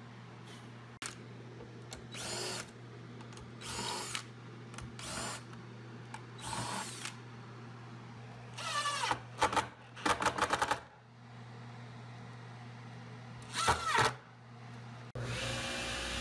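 Cordless drill/driver run in about ten short bursts, drilling pilot holes with a self-centering Vix bit and driving screws to fasten aluminum T-track into a plywood sled. The motor winds up and down with each burst, with a quick rattle of clicks a little past the middle. Near the end the sound cuts abruptly to a steady machine hum.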